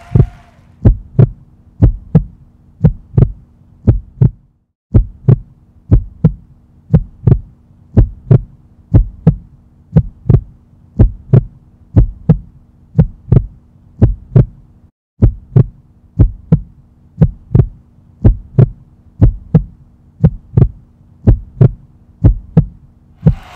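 Heartbeat sound effect: a deep double thump repeating about once a second over a low steady hum, the whole track cutting out briefly twice.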